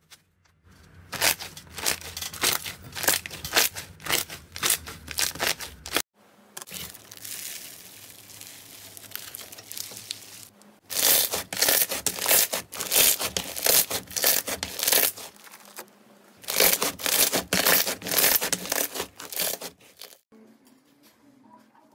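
Slime worked by hand in several short takes: pressed through a wire grid, stretched until it tears, and squeezed and folded between the fingers. It gives dense runs of sticky crackling and popping, with a softer, even tearing hiss in the middle take.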